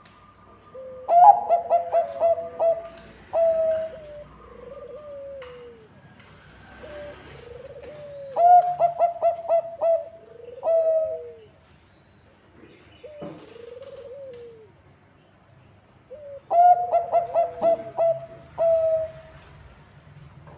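Bangkok-type zebra dove (perkutut) singing three songs about seven to eight seconds apart. Each is a quick run of short staccato notes ending in a few longer coos, with softer coos that bend up and down between the songs.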